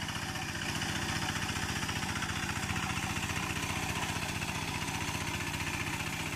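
Two-wheel walk-behind hand tractor's engine running steadily with a fast, even chugging as it ploughs through a flooded paddy field.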